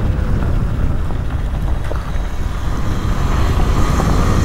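Wind buffeting the GoPro's microphone while riding a Talaria Sting electric dirt bike, with a faint steady whine over the rushing noise.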